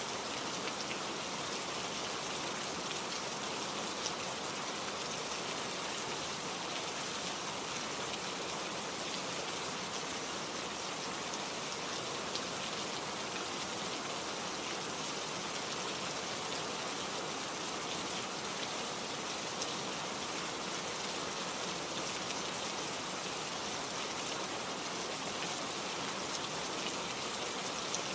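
Steady rain falling, a constant hiss with scattered drops ticking on a surface.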